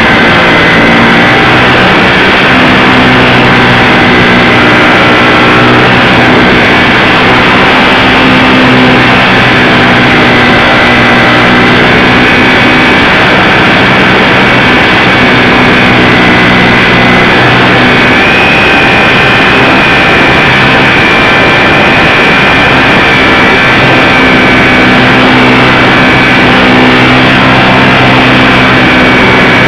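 Electric motor and propeller of a ParkZone Super Cub RC plane running steadily in flight, picked up loud by a camera mounted on the plane, with a rushing noise. The high whine steps up in pitch about two-thirds of the way through.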